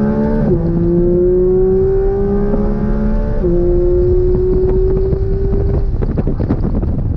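Porsche 992 GT3 RS's 4.0-litre flat-six at full throttle, its note rising steadily, with quick upshifts about half a second and three and a half seconds in. About six seconds in the engine note drops away as the throttle comes off, leaving road and wind noise with a run of short crackles.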